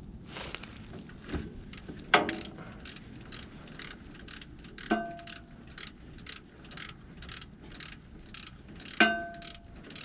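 Hand ratchet clicking steadily as a starter mounting bolt is turned in, with a few louder metallic clinks of the tool against the starter or frame, two of which ring briefly.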